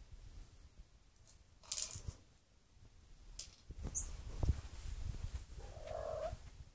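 Cat treat ball being nudged and rolled across carpet by a cat, with treats rattling and knocking inside the plastic ball in scattered clicks and soft knocks. A short pitched sound comes near the end.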